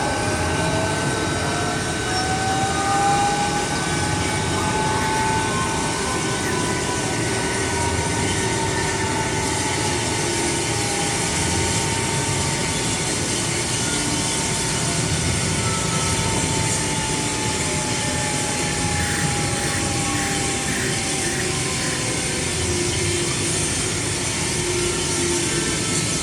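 Sound effects of the First Order TIE Echelon starship's twin ion engines, a steady hiss and hum with a whine that rises over the first few seconds, holds, then slowly sinks, over a steady higher tone.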